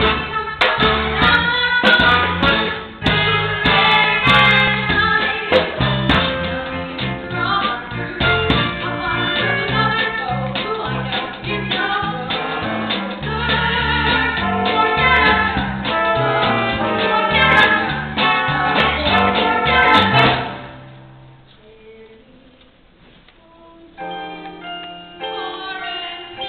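Recorded music with singing, which stops about twenty seconds in; after a short, much quieter pause, lighter music of short separate notes starts near the end.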